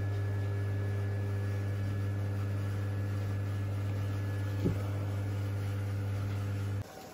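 A steady low electrical appliance hum with a faint higher whine over it, broken by a single click about two-thirds of the way through; the hum cuts off abruptly near the end, leaving a quieter hiss.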